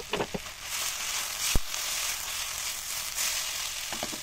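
Chopped vegetables (baby corn, onion and tomato) sizzling hard in a hot metal pan, steaming after a little water has gone in. A single sharp knock comes about a second and a half in, with a few light clicks near the start and near the end.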